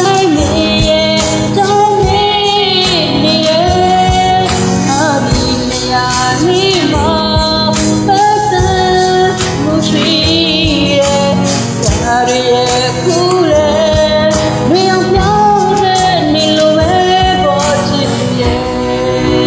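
A woman singing a pop song with vibrato over a karaoke backing track with a steady beat.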